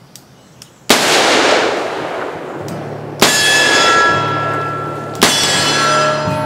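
A single loud shot from a Ruger Redhawk revolver firing a heavy 325-grain hard-cast .45 Colt load about a second in, fading away over a couple of seconds. Background music comes in under it, with two more sharp hits with ringing tones about three and five seconds in.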